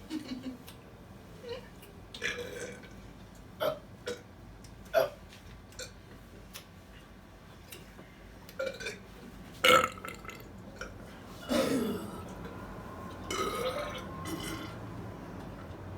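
People burping after drinking soda: a string of short burps, the loudest about ten seconds in, then two longer drawn-out burps in the last few seconds.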